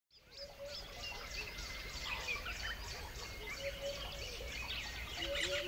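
Several wild birds chirping and singing at once, many short high notes overlapping, with lower short call notes repeating every so often, over a faint steady low rumble.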